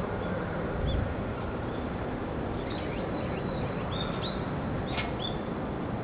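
Small birds chirping: several short high chirps, more of them in the second half, over a steady background noise. A brief low bump about a second in.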